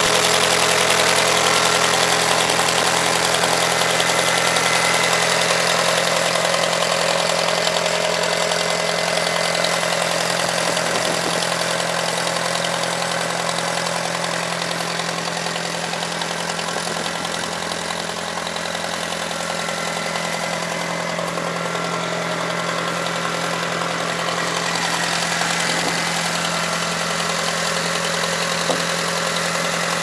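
Case 530 backhoe engine idling steadily, a little quieter around the middle.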